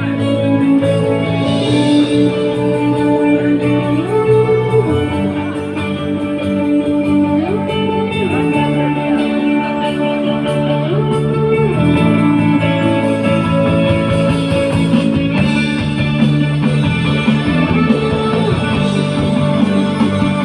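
Guitar music, with held chords changing every few seconds.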